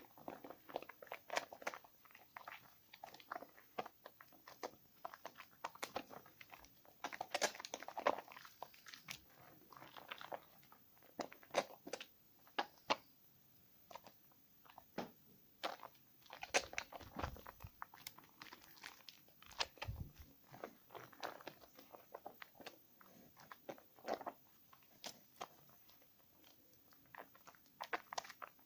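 Hands lathering a bar of Nevskaya Kosmetika 'Karmen' soap, giving irregular crunchy, crackling squishes, with a couple of low thuds about two-thirds of the way through.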